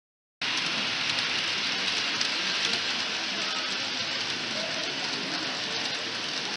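Steady, even hiss-like noise of a model freight train running on its layout, mixed with hall background; it starts abruptly about half a second in.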